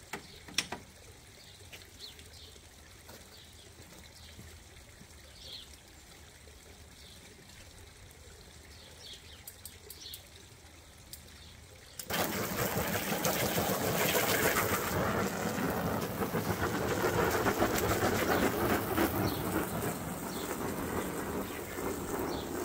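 Garden hose spray gun spraying water onto an inflatable hot tub and the patio. The spray starts suddenly about halfway through as a steady rushing hiss. Before that there is only faint, occasional bird chirping.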